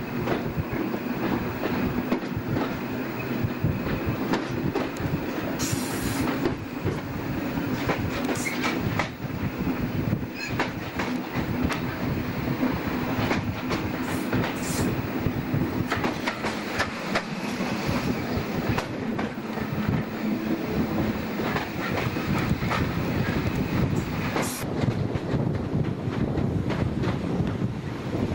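Slam-door EPB electric multiple unit running at speed, heard from an open window: a steady rumble with the wheels clattering over rail joints, and a few brief high wheel squeals.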